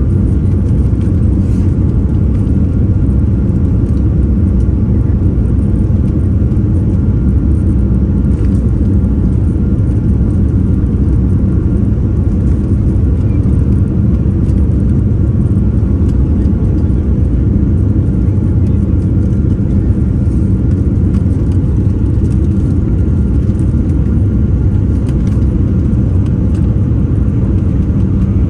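Jet airliner cabin noise heard from inside the cabin: a steady low rumble of the engines and rushing air, unchanging throughout.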